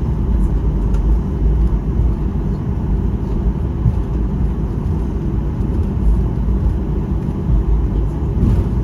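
Steady low rumble of a Boeing 737-800's cabin noise, with a faint steady tone above it and no sudden changes.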